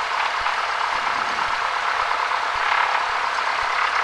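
Cessna 172's piston engine running steadily at low power on the ground, a constant cabin drone with no change in pitch.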